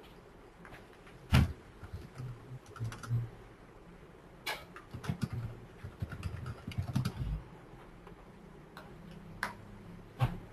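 Typing on a computer keyboard: irregular keystrokes and clicks, a few sharper ones standing out, with a denser run of keys in the middle.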